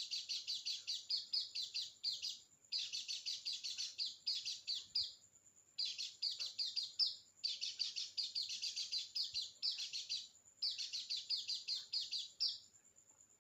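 White-eye (pleci) singing a fast, chattering run of high notes in full 'nembak' song, in about five phrases of two to three seconds each with short pauses between them.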